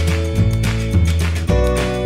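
Background music: upbeat track with a steady beat and strummed guitar.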